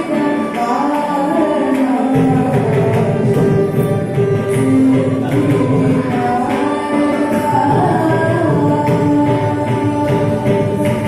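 Carnatic devotional song: a female voice singing with gliding melodic lines, accompanied by violin and the strokes of a mridangam drum. The drumming fills out in the low end about two seconds in.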